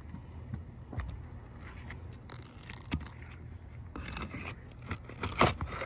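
Steel flat bar scraping and prying under asphalt shingles to pull roofing nails, with scattered sharp metal clicks and a louder clatter near the end.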